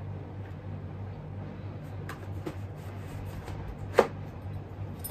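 Small handling sounds from a full-face motorcycle helmet's chin strap as it is fastened: faint ticks, then one sharp click about four seconds in, over a steady low hum.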